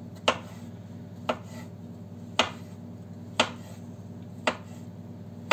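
Kitchen knife slicing a red pepper on a wooden cutting board: a sharp knock of the blade on the board about once a second.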